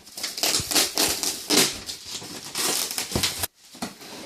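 Packaging being handled: irregular rustling, crinkling and scraping of cardboard and paper, cut off abruptly about three and a half seconds in.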